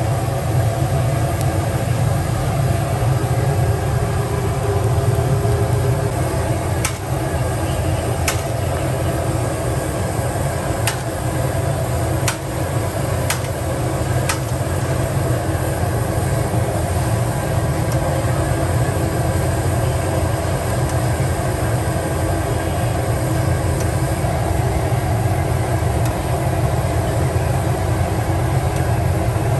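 Deep-fat frying of sabudana vadas in a large steel kadhai: oil bubbling and sizzling over a steady low rumble. Several sharp metal clicks of the perforated skimmer against the pan come between about 7 and 14 seconds in.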